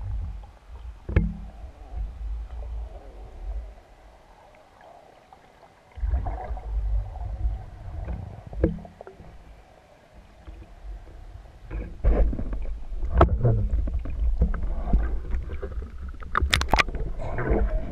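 Muffled underwater rumble of water moving around a spearfisher's gun-mounted camera, dropping quieter for a couple of seconds early on. In the last third it grows louder, broken by splashes and sharp knocks at the surface as a speared pike is brought up.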